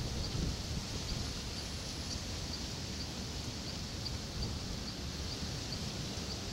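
Night-time outdoor ambience: a steady hiss and low rumble, with a faint high-pitched chirp repeating evenly about twice a second.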